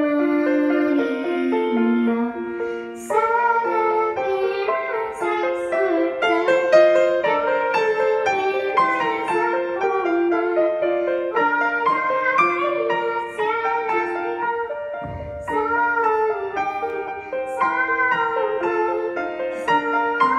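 A young girl singing a hymn in Spanish, solo, with piano accompaniment.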